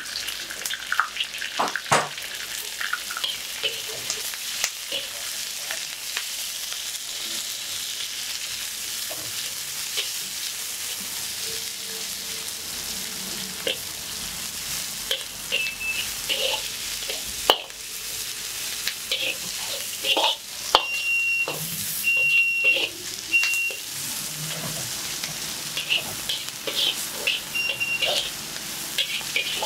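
Chicken with shredded cabbage, carrot and bell pepper sizzling in a hot wok as it is stir-fried, with a metal spatula scraping and clanking against the pan. A few short high squeaks come through in the second half.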